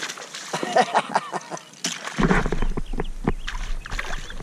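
A fish splashing and thrashing at the water's surface as it strikes a topwater lure, a run of sharp, irregular splashes. The angler takes it for a trout.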